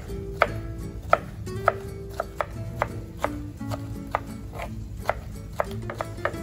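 Chef's knife chopping red and green peppers on a plastic cutting board: sharp, irregular knocks of the blade on the board, about two a second. Background music plays underneath.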